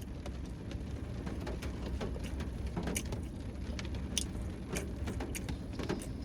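A low steady rumble with scattered, irregular light clicks and taps, a few a second.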